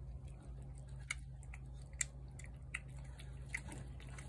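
A feral cat chewing wet cat food from a plate, heard as soft, irregular wet clicks over a steady low hum.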